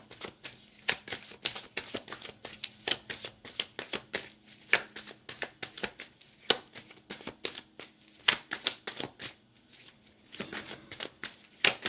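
Tarot cards being shuffled by hand: a quick, irregular run of card snaps and riffles, as the deck is worked to draw a clarifying card.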